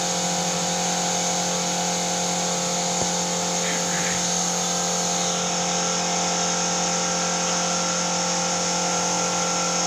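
Air compressor for a paint spray gun running steadily, giving a constant motor hum with a continuous air hiss.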